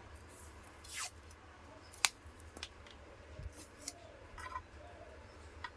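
Black PVC electrical tape being pulled off the roll and wrapped around twisted wire joints, with a rasping pull about a second in, a sharp click or snip just after two seconds, and small scattered crackles and handling clicks.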